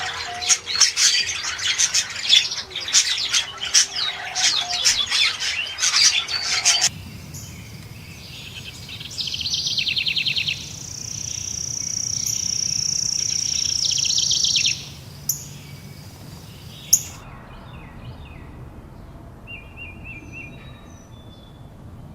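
A sequence of birdsong recordings. It opens with a dense chorus of many small birds chirping. About seven seconds in it changes to rapid trills and a long, high, steady note, with two sharp clicks. For the last few seconds there are only sparse, quieter chirps.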